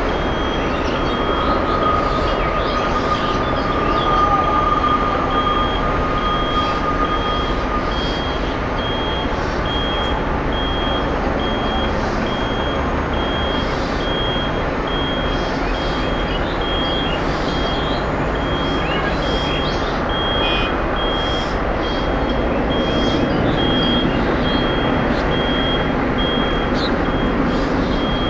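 Boeing 777-300ER's jet engines giving a steady rumble as the airliner rolls out along the runway after landing and slows to turn off. A vehicle's reversing alarm beeps evenly throughout.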